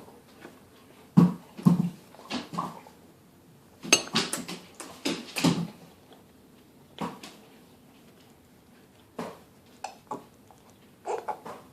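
A young child making clicking and smacking sounds with his tongue and mouth, in short bursts of a few clicks each with pauses between.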